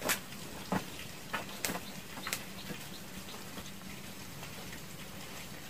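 A few sharp clicks and light knocks, irregularly spaced over the first two and a half seconds, then quiet room tone with a faint steady hum.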